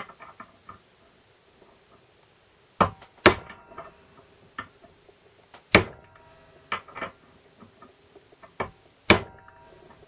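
Hammer blows on a drift driving the sintered bush further into a Land Rover Series 3 transfer box front output shaft held in a vise. There are four heavy strikes a few seconds apart, each with a short metallic ring, and lighter taps in between.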